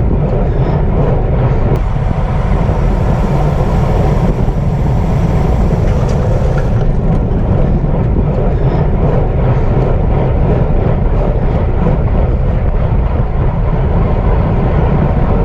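Loud, steady wind rush on the microphone from riding a racing bicycle at speed, with heavy low buffeting.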